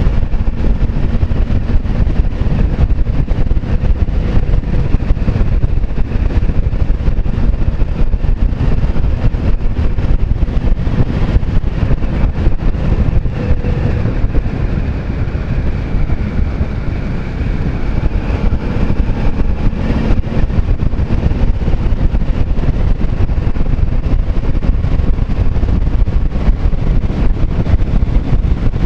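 Steady wind rush on the action camera's microphone while riding a motorcycle, with the engine's faint wavering hum underneath.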